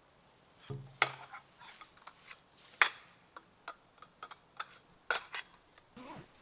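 Clinks and knocks of a tipi's metal centre pole being handled and taken apart, with loud sharp clacks about one, three and five seconds in among lighter ticks.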